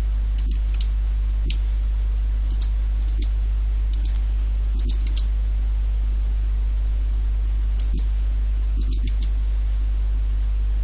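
Computer mouse and keyboard clicks, scattered irregularly with a pause in the middle, over a steady low hum and hiss.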